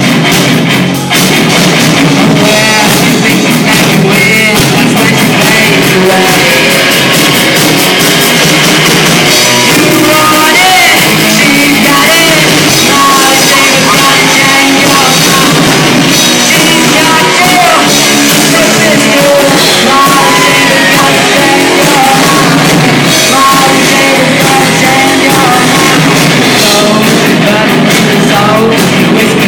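Loud rock music with singing and drums, continuous throughout.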